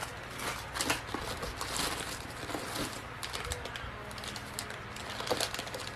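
Plastic wrapping crinkling and tearing as a small packaged item is opened by hand: an irregular scatter of small clicks and rustles.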